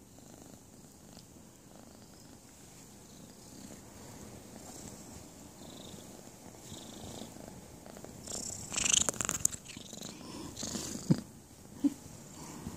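Abyssinian kitten purring steadily close to the microphone. About two-thirds in comes a loud burst of rustling as the kittens move against the phone, then a couple of short sharp sounds near the end.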